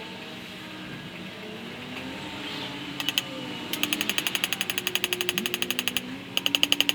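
Rapid, even tapping on a paint bucket filled with freshly poured wet plaster and sand, about ten taps a second. It starts about three seconds in and pauses briefly near six seconds. The tapping works air bubbles out of the mix so the furnace lining won't crack or pop when heated.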